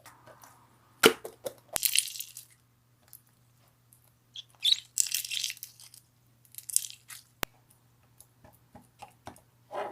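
Slime being pressed and poked by hand, giving short bursts of crackling and popping with sharp clicks, separated by pauses, and a duller squish at the very end.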